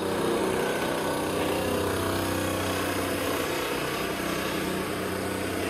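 A motor running steadily: an even hum over rough mechanical noise, holding at one level.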